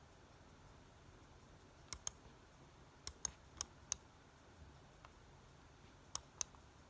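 Sparse, sharp clicks of laptop keys being pressed against a quiet room: a pair about two seconds in, four more over the next two seconds, and another pair near the end.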